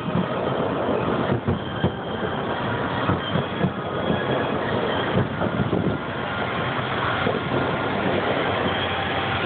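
Distant fireworks finale: a dense barrage of aerial shell bursts merging into a continuous rumble, with sharper bangs standing out every second or so.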